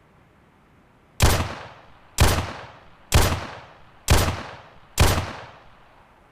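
Five shots from an 11.4 mm (.45 calibre) pistol, evenly spaced about a second apart, each a sharp crack followed by a tail that dies away before the next.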